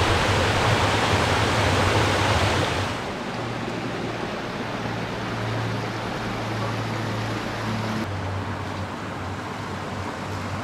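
Small waterfall rushing and splashing over rock ledges, then about three seconds in a quieter steady rush of creek water running over a riffle.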